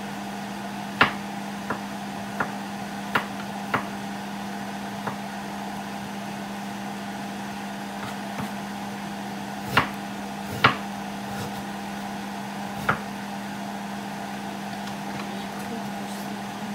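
An empty nonstick frying pan heating on a gas burner, giving about ten irregular sharp ticks, the loudest two near the middle, over a steady low mechanical hum.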